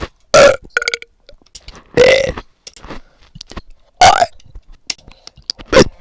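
A person burping loudly: four short burps, about two seconds apart.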